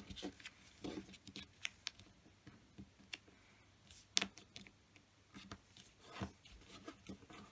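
Origami paper rustling and crinkling as fingers fold flaps and press creases into a paper-balloon base, with scattered small crisp clicks, the sharpest about four seconds in.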